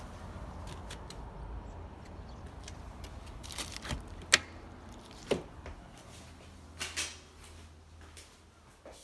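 A front door being unlocked and opened: a sharp click about four seconds in, then a few softer knocks and clicks of the lock and handle, over a low steady rumble that dies away in the second half.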